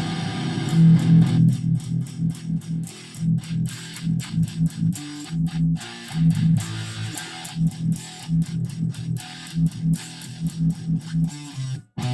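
First Act electric guitar played with a distorted tone: a fast riff of short, rapidly picked low notes, breaking off briefly near the end.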